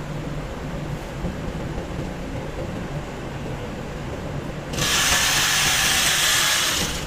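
Steady hum of flour-mill machinery, then, about two-thirds of the way through, a handheld electric bag-closing sewing machine runs for about two seconds, stitching shut the top of a filled flour sack.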